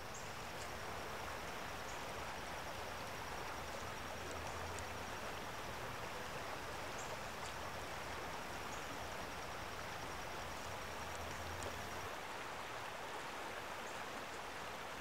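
Steady outdoor ambience: an even rushing hiss, with a faint high steady trill and a low hum that both drop out about twelve seconds in.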